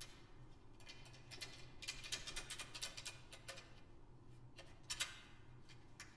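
Quiet hallway room tone: a low steady hum with a run of faint, irregular light clicks and ticks. The clicks are densest about two to three seconds in, and a sharper click comes about five seconds in.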